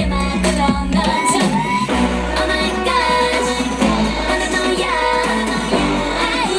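K-pop dance song with female group vocals over a backing track with a heavy, sustained bass line.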